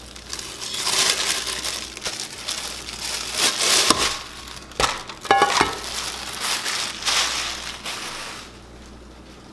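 Clear plastic bag crinkling and rustling as a rice cooker's nonstick inner pot is unwrapped from it. There are a couple of light knocks about halfway through and a brief squeak just after. The rustling dies away near the end.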